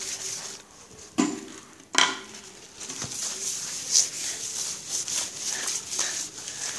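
Scratchy rubbing and scraping on a sheet of drawing paper under a hand, with a sharp knock about two seconds in.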